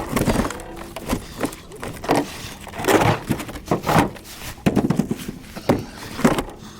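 Cut oak and maple firewood pieces being tossed into a pickup truck bed: a string of irregular wooden thuds and knocks, about one or two a second.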